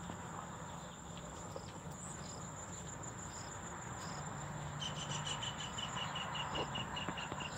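Insects chirping in the grass: a steady high-pitched buzz throughout, with short higher calls about once a second, and from about five seconds in a rapid run of short chirps, about five a second.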